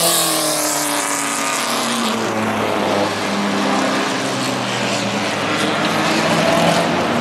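Vintage single-seater racing car's engine passing at speed: its pitch drops sharply as it goes by, then a lower, steady engine note runs on.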